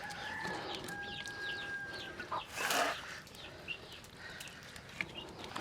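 Chickens clucking and chirping in the background, with a steady held tone during the first two seconds and a short rustle about halfway through.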